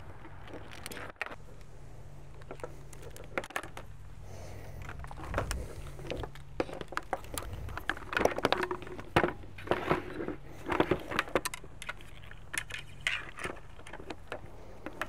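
Hands working a plastic pump sprayer and its vinyl hose and fittings: irregular clicks, knocks and rattles of plastic and metal parts, busiest in the second half.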